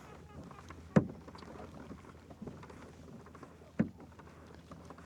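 Two sharp knocks against a kayak, about three seconds apart, over a low steady background.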